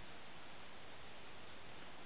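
Steady faint hiss with no distinct events: the low background noise of a quiet night recording.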